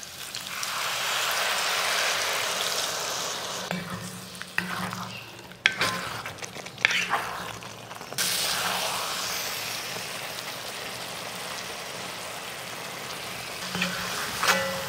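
Water poured into a hot iron kadai of spiced masala, sizzling. It turns into a steady sizzle as the gravy cooks and a wooden spatula stirs and scrapes it, with a few sharp knocks against the pan.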